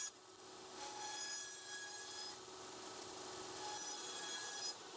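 Bandsaw running and cutting curves to round off the corners of a plywood square. The sound is faint and steady.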